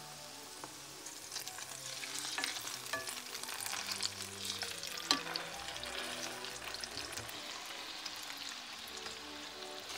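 Food sizzling in hot oil in a frying pan, with a few sharp knocks and scrapes of a utensil against the pan; the sharpest knock comes about five seconds in.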